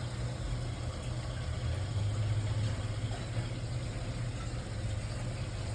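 Boiler circulator pump, fitted with a new motor and bearing assembly, running steadily alongside the fired boiler: a continuous low hum.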